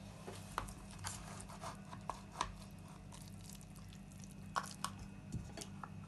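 Metal cake server cutting through soft, syrup-soaked basbousa and scraping and clicking against the metal baking pan as a slice is worked loose: irregular light clicks and short scrapes, a few of them sharp.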